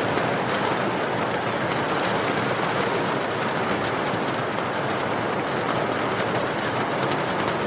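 Steady rain, a dense even hiss, with faint small crackles of a wood fire scattered over it.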